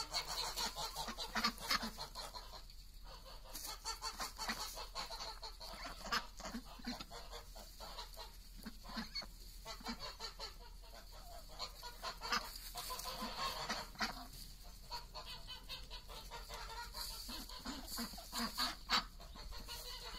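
A flock of white domestic ducks calling, with repeated quacks, mixed with chickens clucking and the scratchy rustle of dry leaves as the birds forage.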